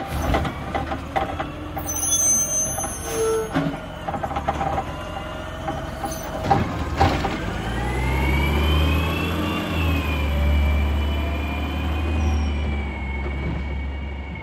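Side-loading garbage truck at a bin stop: knocks and clatter from the arm and bin for the first few seconds, a brief air-brake release about halfway through, then the diesel engine revving up, its pitch rising and then holding, as the truck pulls away.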